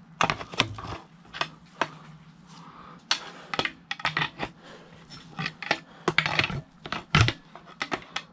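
Irregular metallic clinks and knocks of hand tools against engine parts, a dozen or so sharp taps with short gaps between them.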